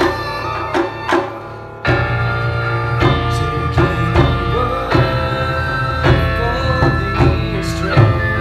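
Taiko drum ensemble playing with flutes: regular drum strikes under a sustained flute melody. The sound drops back briefly about a second in, then the full ensemble comes back in hard just before two seconds.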